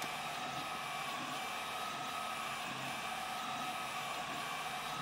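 Algolaser DIY kit diode laser engraver running as it engraves: a steady whir from the laser module's cooling fan and the stepper motors driving the head, with a few held tones over the noise.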